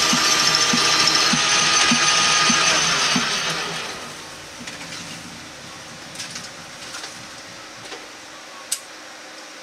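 Metal lathe turning a metal tube, the tool cutting and throwing off curling chips, with a steady ring and a regular tick about one and a half times a second. About three seconds in it is switched off and runs down over a second, leaving a few light clicks and one sharp click near the end.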